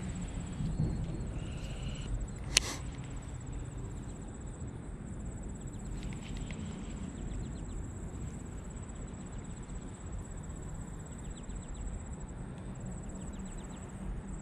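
Outdoor ambience with a steady high-pitched insect drone over a low rumble of wind on the microphone. There is one sharp click about two and a half seconds in, and later a few short runs of faint, fast ticking.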